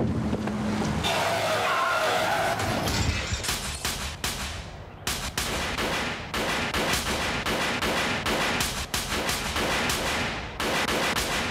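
A brief screech about a second in, then long volleys of rapid automatic rifle fire from about three seconds on, with short breaks between the bursts.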